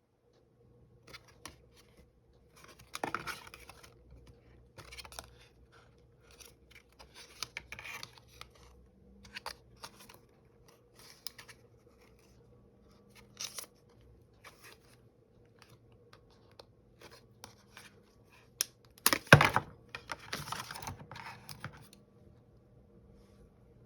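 Packaging being handled and opened by hand: scattered scratches, clicks and short tearing or cutting sounds, the loudest a sharp snap-and-rustle about 19 seconds in.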